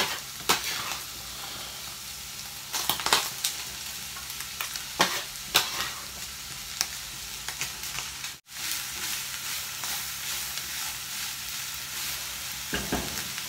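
Diced onions and carrots sizzling steadily as they fry in oil with browned beef mince in a casserole pot, with a few sharp clicks and scrapes of the knife and spatula against the board and pot.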